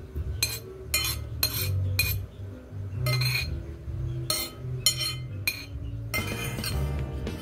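Metal spoon clinking and scraping against a ceramic bowl as rice is scooped up, a sharp clink about every half second.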